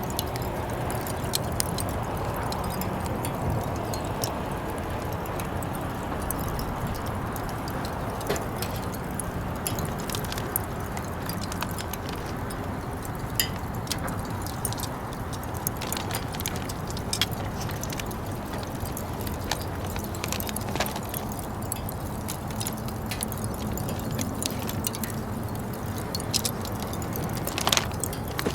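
Barbecue on a Uniflame Fire Grill: a steady hiss with many scattered sharp crackles and light metallic clinks.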